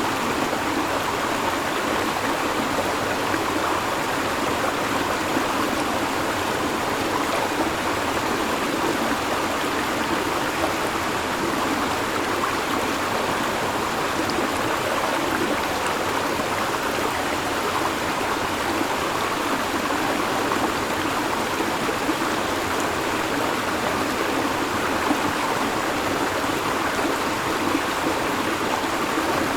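River water flowing and babbling steadily, an even rushing with no breaks.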